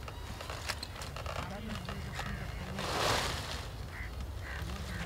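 Cauliflower heads and their leaves rustling as a labourer piles them into a truck bed, with a brief louder rustle about three seconds in. Faint voices and a low rumble run underneath.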